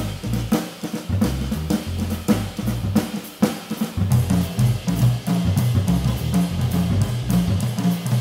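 Acoustic jazz drum kit played solo with sticks: dense, closely spaced strokes moving across snare, toms and bass drum, with cymbals ringing over them.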